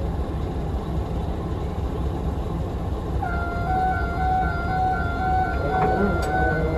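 KTMB Class 26 diesel locomotive running at low speed with a steady low engine drone. About three seconds in, background music with sustained, pulsing notes fades in over it, and more notes join near the end.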